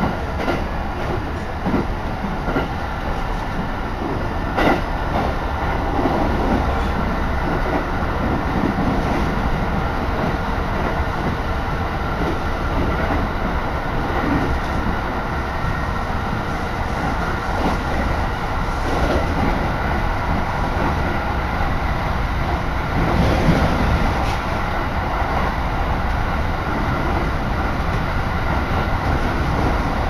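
Cabin noise of a Joetsu Line local train running between stations: a steady rumble with the wheels knocking over rail joints now and then.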